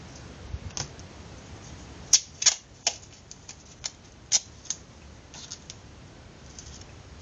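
Sharp clicks and light taps as hands handle small objects on a paper-covered table: about eight of them from about a second in, the loudest just after two seconds, then fainter ticks near the end.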